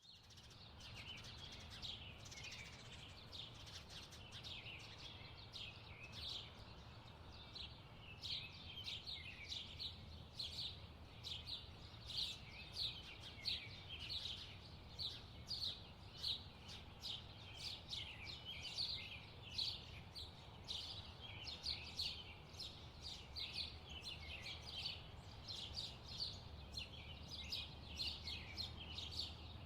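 Songbirds chirping and singing in a park, many short high calls overlapping without a break, over a faint, steady low rumble of background noise.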